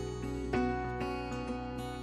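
Background music: gentle plucked acoustic guitar with a steady low bass note underneath.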